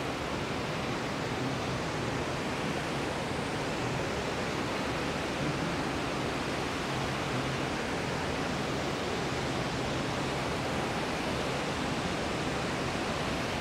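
Steady rush of river water spilling over a dam and churning in the white water below it.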